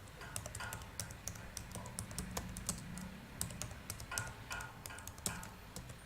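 Faint, irregular typing on a computer keyboard, several key clicks a second.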